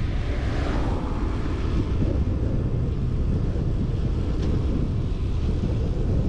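Wind buffeting the microphone of a GoPro action camera on a moving road bike: a steady, loud low rumble, with a brief higher rush that falls in pitch within the first second.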